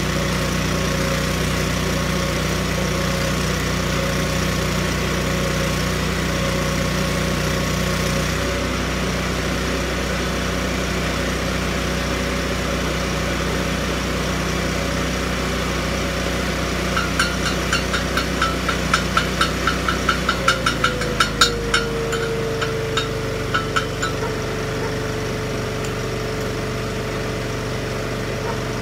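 Miller Bobcat 250 engine-driven welder running steadily, with a welding arc crackling and hissing for the first eight seconds or so, then stopping. From about 17 seconds in comes a run of sharp metallic taps, a few a second, for several seconds. About 20 seconds in the engine drops to a lower, steady speed.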